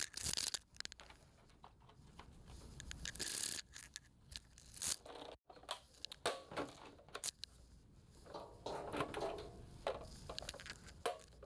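Handling noise while the repaired TV's power cord is plugged in: scattered clicks, scrapes and rustles.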